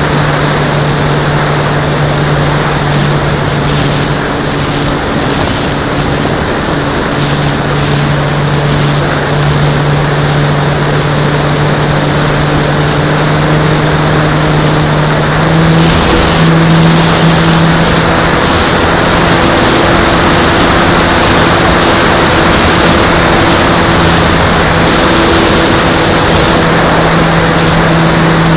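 Motor and propeller of an Extra 330L radio-controlled model airplane, heard from its onboard camera, running steadily with wind rushing over the microphone. The pitch steps up slightly and grows a little louder about halfway through.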